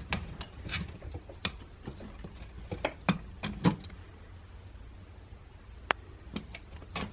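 Clicks and knocks of a Selden Rodkicker's tube parts being handled and pushed together by hand, scattered irregularly over a low steady hum.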